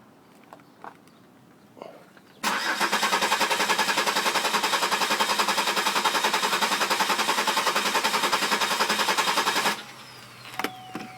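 2004 Buick Rendezvous 3400 (3.4 L) V6 cranking on the starter with an even, rapid pulse for about seven seconds without catching, then stopping abruptly. It is the car's intermittent no-start: the engine turns over but will not fire even though it has spark and fuel pressure.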